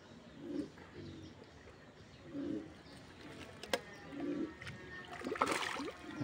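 A low bird call repeated about every two seconds, then a short splash in the pond water about five and a half seconds in.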